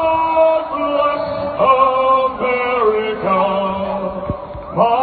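A man singing solo into a microphone, amplified over a ballpark's public-address system. He holds long notes, with a few short breaks and pitch changes between phrases.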